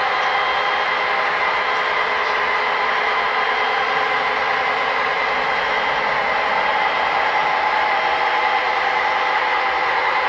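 Model train running past: a steady rumble and whir of its cars' wheels on the track.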